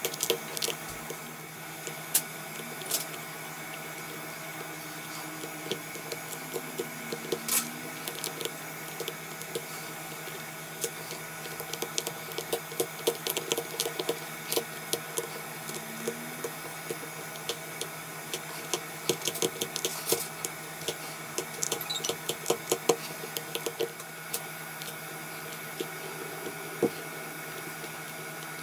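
Small hand tools clicking and scraping against a phone in irregular clusters, over a steady electrical hum.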